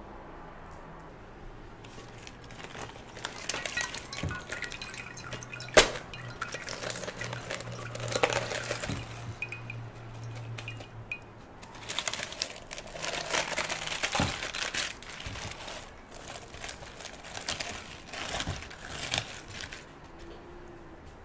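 Hands tearing and handling wet lettuce leaves, giving irregular crisp rips and wet rustling with dripping water. There is one sharp knock about six seconds in.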